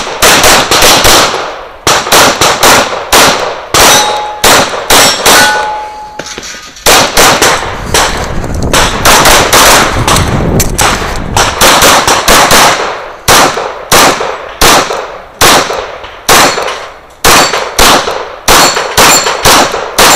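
Semi-automatic pistol fired in rapid strings of shots during a USPSA competition stage, each shot a loud sharp crack with a short ringing tail. There are brief pauses about two seconds in and again around seven seconds in.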